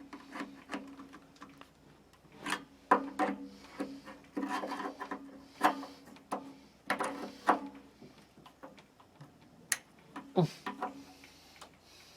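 Scattered clicks, knocks and scraping as an electric water heater thermostat is pushed and slid into its tight metal mounting clips.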